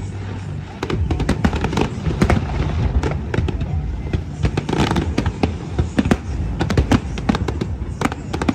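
Aerial fireworks going off in quick succession: many sharp cracks and pops over a low continuous booming rumble, with music playing underneath.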